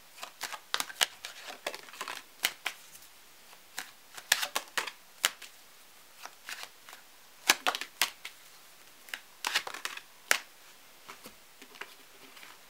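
A deck of tarot cards being shuffled by hand: irregular crisp snaps and flicks of the cards, some in quick clusters, with cards laid down onto the spread.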